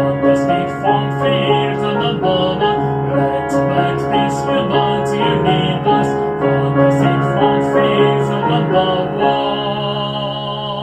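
Background music led by piano-like notes, settling into a held chord near the end.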